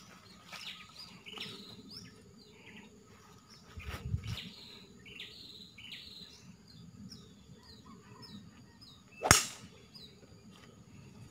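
Golf iron striking the ball off fairway grass: one sharp, crisp impact about nine seconds in, the loudest sound here. Small birds chirp repeatedly throughout.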